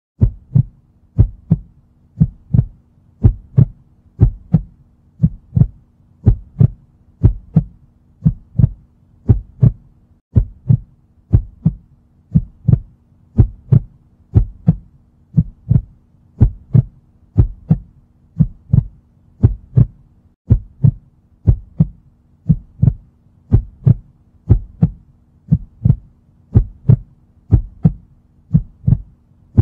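Heartbeat sound effect: an even, steady run of deep double thumps, about one pair a second, over a faint low hum.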